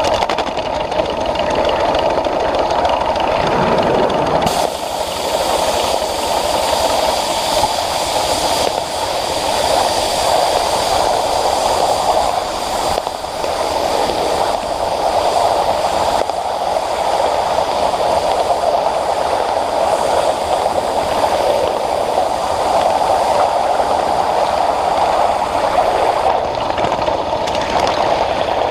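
Ride-on scale live-steam Pacific (4-6-2) locomotive running with its passenger train: a steady rumble of wheels on the track and the engine working, with a high hiss joining about four and a half seconds in.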